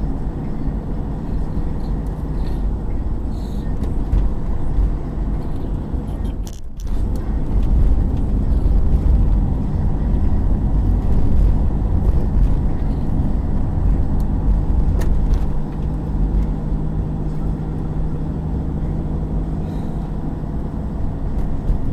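Motorhome driving along an open road, heard from inside the cab: a steady low rumble of engine and tyres that cuts out briefly about six and a half seconds in.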